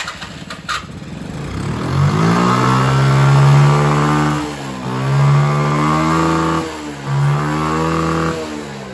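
Small 50cc moped engine being revved three times, each rev held for a second or two before dropping back toward idle.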